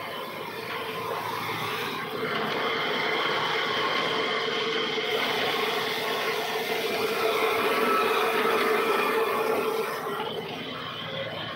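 Sawmill band saw running, a steady mechanical hum with a high whine from the spinning band wheel and blade. It gets louder about two seconds in and drops back near the end.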